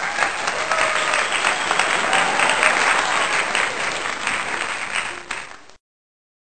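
Applause: a crowd clapping densely and loudly for about six seconds, then cutting off suddenly. It is an applause sound effect laid over the picture.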